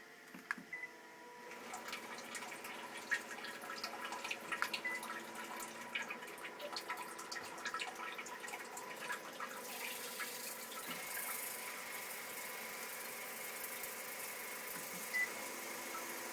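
Panasonic DL-WH20 bidet seat's wash nozzle starting to spray water, with irregular crackling and knocking clicks through the first half as the nozzle moves, then a steadier spray with a faint motor tone. This is the 'buri-buri' abnormal noise of the move function, which a repairer says Panasonic seats typically make. Two short high beeps, one near the start and one near the end.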